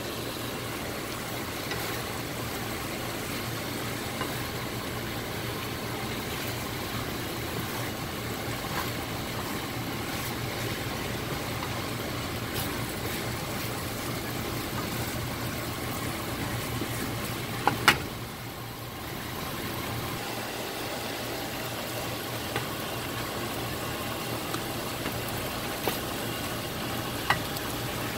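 Chicken, bell peppers and onions sizzling steadily in a nonstick frying pan while being stirred with a wooden spatula, with a steady low hum underneath. Now and then the spatula taps the pan, with a sharp double knock about two-thirds of the way through.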